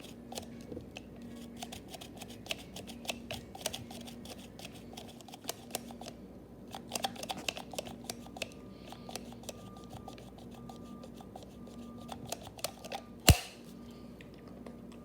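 Irregular small clicks and crackles, with one sharp, much louder knock about thirteen seconds in.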